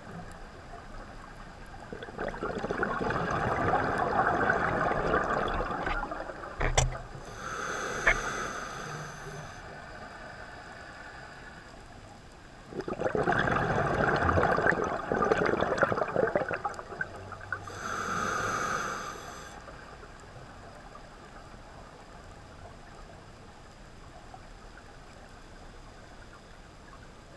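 Scuba diver breathing through a regulator, heard underwater through a camera housing: two long exhalations of bubbling rush, each followed by a shorter hiss of the regulator's demand valve on the inhale. A single sharp click comes about seven seconds in.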